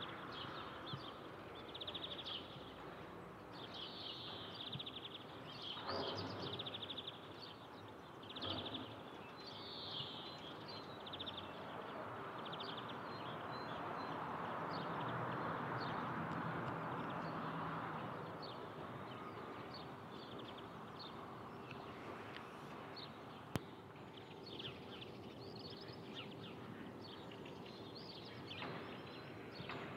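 Outdoor ambience: small birds chirping again and again over a steady background hiss that swells for several seconds in the middle. A single sharp click comes about three quarters of the way through.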